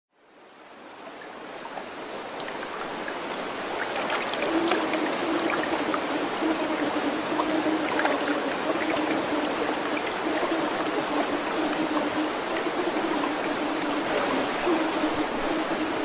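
Stream water rushing and trickling over rocks, fading in over the first few seconds, with scattered small splashes. A low, uneven hum sits underneath from about four seconds in.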